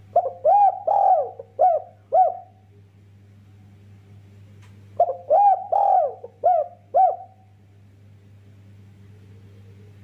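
Spotted dove cooing: two phrases of about five coos each, a few seconds apart, each coo rising and falling in pitch. A faint steady low hum runs underneath.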